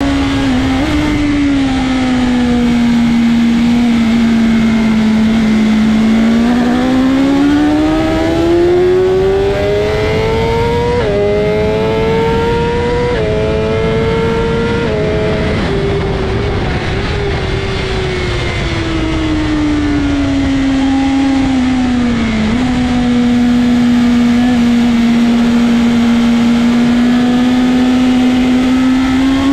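BMW M1000RR's inline-four engine at race pace under wind rush. It holds a steady note through a corner, then revs up hard with three quick upshifts, each a sudden drop in pitch. The note then falls away as the bike slows, holds steady through the next corner and starts climbing again near the end.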